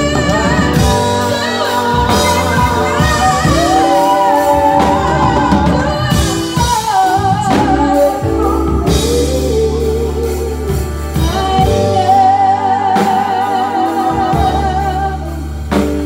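Two women singing a gospel song into microphones, amplified through a PA system with instrumental accompaniment, holding long notes with vibrato.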